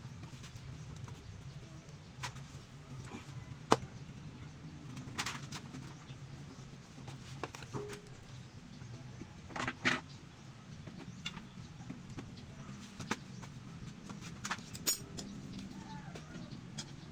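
Irregular sharp clicks and knocks of hand tools and engine parts being handled, a few seconds apart, over a steady low hum. The loudest knock comes about a third of the way in, and a double knock falls just past the middle.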